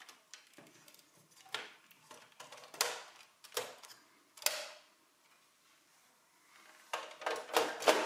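Dell Optiplex 5070 SFF case being closed up, its front panel and top cover fitted back on: separate sharp clicks and knocks, four spaced out over the first few seconds and a quick cluster near the end.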